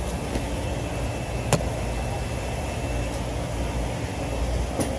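Steady machine drone of a running Trane rooftop HVAC unit, with one sharp click about a second and a half in.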